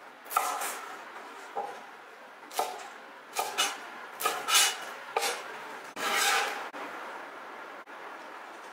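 Cleaver chopping scallions on an end-grain wooden cutting board: about nine sharp chops at uneven intervals, stopping about two seconds before the end.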